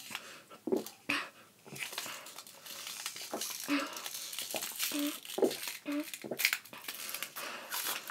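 Thin plastic water bottle crinkling and crackling as it is squeezed and crushed in the hands while being drunk from, in quick irregular crackles, with a few short low throat sounds in between.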